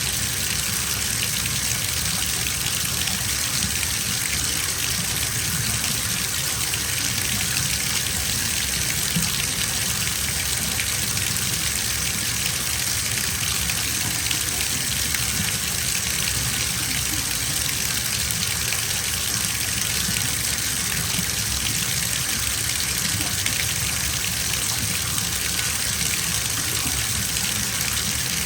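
Bathtub filling from the tap: a steady, even rush of water pouring into the tub.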